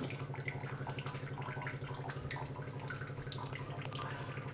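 Light ticks and soft wet taps of chopsticks on a stainless steel pan and in a bowl of batter as scallops are coated, over a steady low hum.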